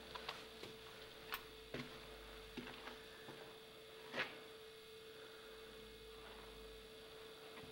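Faint, steady electrical hum on one constant tone, with a few faint knocks, the clearest about four seconds in.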